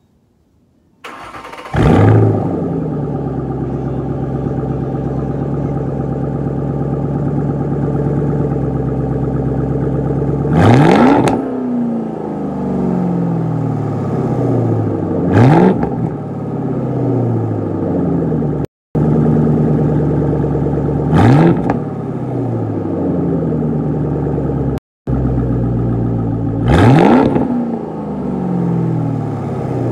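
2010 Ford Mustang GT's 4.6-litre V8 with reworked exhaust, heard at the tailpipes. It starts about two seconds in and settles to a steady idle, then is revved four times, each rev climbing quickly and dropping back to idle. The sound cuts out briefly twice.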